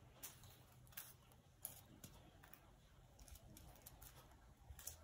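Faint, irregular rustles and crinkles of tissue paper squares being picked up and pressed onto a glued paper cutout, over a faint low hum.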